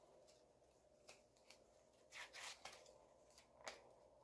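Faint, brief swishes and clicks of trading cards being slid and fanned by hand, a few separate strokes, the loudest cluster about two seconds in, over quiet room tone.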